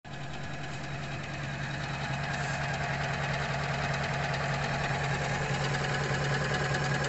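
Usha Janome Memory Craft 450E computerised embroidery machine stitching a design into denim: a steady motor hum under a rapid, even needle rhythm. It builds slightly over the first couple of seconds, then runs at a constant pace.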